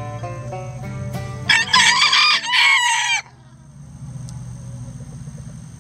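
A rooster crows once, loud, from about a second and a half in for nearly two seconds, cutting in over plucked-string background music that stops as the crow begins; a low steady hum follows.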